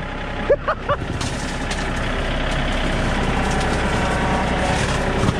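Compact loader tractor's engine running steadily and pulling a little harder from about a second in as the tractor drives off through brush. A few short high chirps come in the first second.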